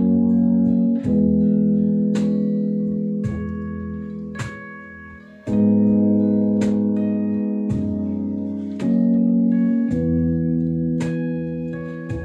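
Instrumental break of an acoustic song: acoustic guitar and keyboard playing slow sustained chords, a new chord about every four to five seconds, each fading away, with a plucked note about once a second.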